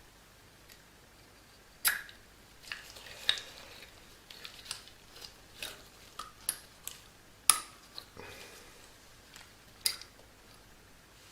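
Door closer mechanism parts being handled and fitted back together: irregular clicks and light metallic knocks, with a few sharper ones, the loudest about two-thirds of the way through.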